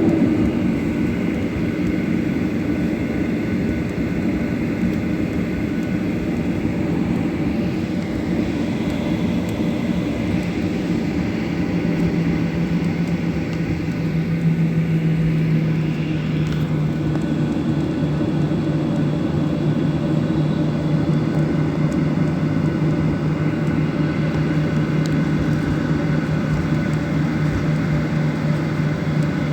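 Boeing 737 jet engines heard from inside the cabin, a steady drone with a constant low hum, just before takeoff.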